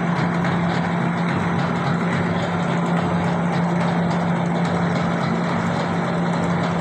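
Automatic scoop-type meatball forming machine running: a steady motor hum with dense mechanical noise and faint light ticking throughout.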